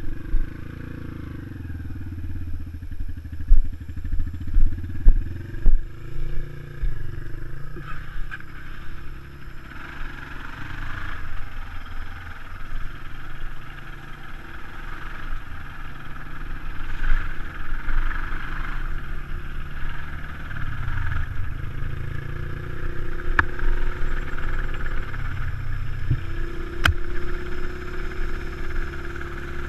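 Dirt bike engines running while riding along a bumpy dirt track, with a few heavy thumps on the microphone a few seconds in. The engine note settles into a steadier, slightly rising hum near the end.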